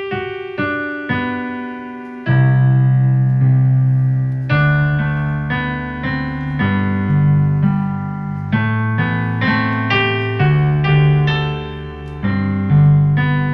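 Sampled Yamaha S90 ES piano sound, played live on a MIDI keyboard, coming out of a Tronsmart Element Force+ Bluetooth speaker: a few single notes, then chords over deep bass notes from about two seconds in.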